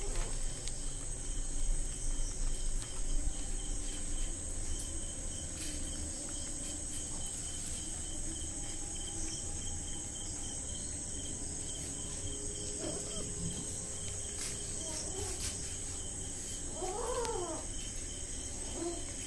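Crickets trilling steadily, while kittens eating give a few short mews in the second half, the clearest one near the end.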